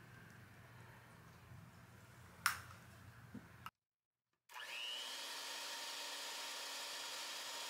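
Electric hand mixer starting up about four and a half seconds in with a brief rising whine, then running steadily as its beaters whip raw egg whites with cream of tartar at the start of making a meringue. Before it, a single sharp clink.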